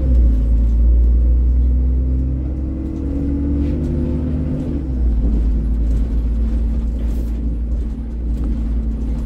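Alexander Dennis Enviro 400 double-decker bus on the move, heard from inside: a deep engine and road rumble. The engine note climbs, then drops about five seconds in and holds steadier.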